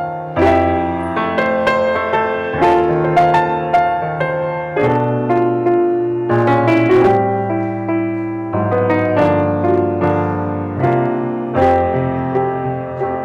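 Solo piano playing a slow, gentle piece: sustained chords over low bass notes, with fresh notes struck every second or so.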